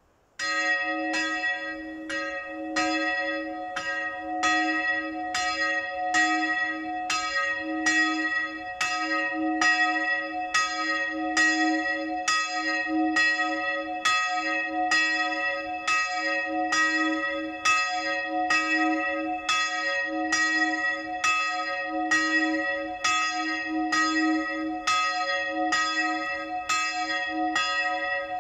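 A single church bell in the chapel's bell lantern ringing the midday bell. It starts suddenly about half a second in, then swings steadily at about one stroke a second, always on the same pitch.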